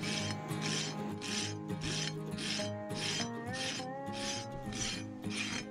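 A farrier's hoof rasp filing across a horse's hoof in steady back-and-forth strokes, about two a second.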